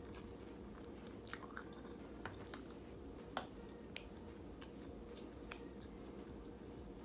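A person chewing food, faint, with a scattering of sharp short clicks from the mouth, the loudest about three and a half seconds in.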